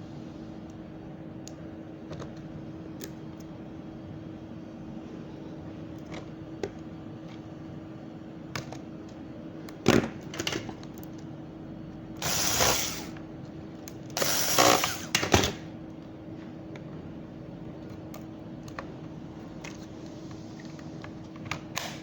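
Scattered clicks and knocks of tools and small machine parts being handled during repair work, over a steady hum. There is a sharper knock about ten seconds in, then two loud, harsh noisy bursts, each about a second long, around twelve and fourteen-and-a-half seconds in.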